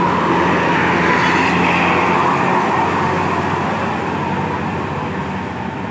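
Tour bus driving past as it climbs the hill: steady engine and tyre noise, loudest in the first couple of seconds, then slowly fading as it moves away.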